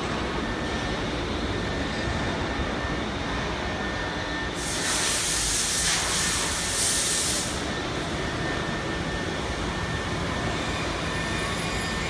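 Carousel-type automatic tool change CNC router running with a steady machine noise and a faint high whine. About five seconds in comes a burst of compressed-air hiss lasting nearly three seconds, the spindle's pneumatic tool release blowing out during the tool change.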